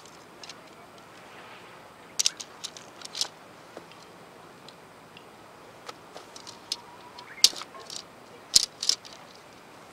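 Tent pole sections clicking and clacking against each other as they are handled and folded, in scattered sharp clicks: one group about two to three seconds in and another from about six seconds, the loudest near the end.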